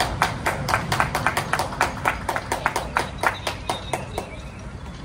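Hands clapping in a quick, even rhythm of about five claps a second, growing softer and stopping about four seconds in.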